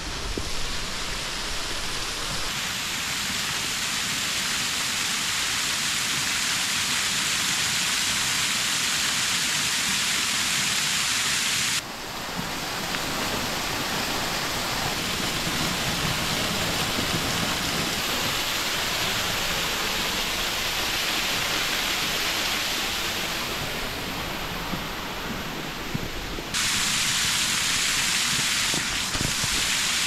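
Waterfall splashing down icy rock: a steady rush of falling water that changes sharply in tone twice.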